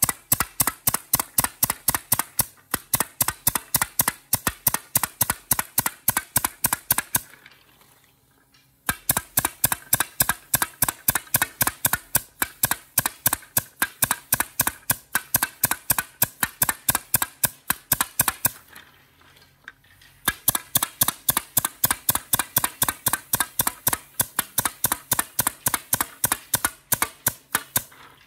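Pneumatic nailer firing in quick succession, about four shots a second, as nails are driven into the plastic end caps of broom handles. The run of shots stops twice for a second or two, once about a quarter of the way in and again about two-thirds of the way in.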